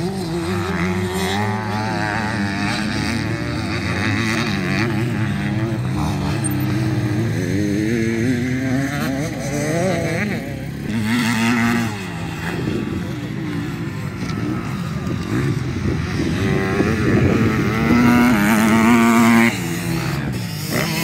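Motocross dirt bike engines revving through the gears as the bikes are ridden around the track. The engine note climbs and falls again and again, is held high for a moment near the end, then drops off.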